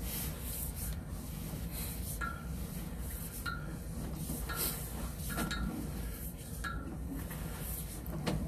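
Sewer inspection camera's push cable and reel being pulled back, giving irregular metallic clinks about once a second, some with a brief ring, over a steady low hum.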